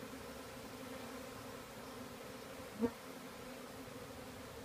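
A swarm of honey bees buzzing, a steady hum from thousands of bees flying around the hive. A short, louder sound about three seconds in.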